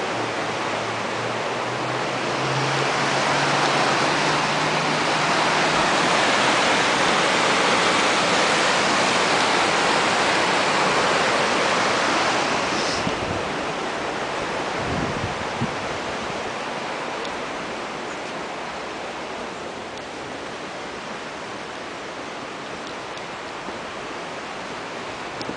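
Rushing river water over rapids: a steady noise of whitewater that grows louder a few seconds in, then fades from about halfway on.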